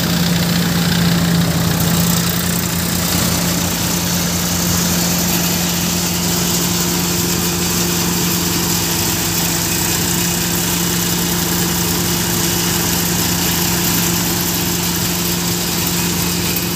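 Tractor engine running steadily, driving a Gautam threshing machine whose drum and blower run with it: a constant hum under a steady rush of noise.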